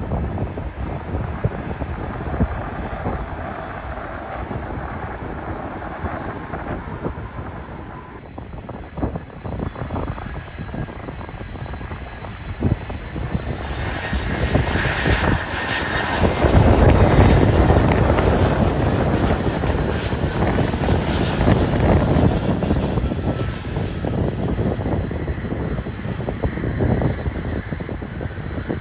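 An airplane's engines grow louder as it passes, loudest about 17 seconds in, then slowly fade. Wind buffets the microphone throughout.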